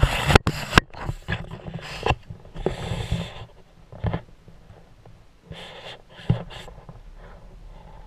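Handling noise: knocks and clicks, then rustling as the camera brushes through young spruce boughs, with a few more knocks and rustles later on.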